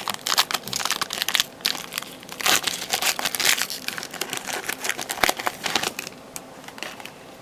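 Foil trading-card pack wrapper crinkling in quick, irregular crackles as it is handled and opened, stopping about six seconds in.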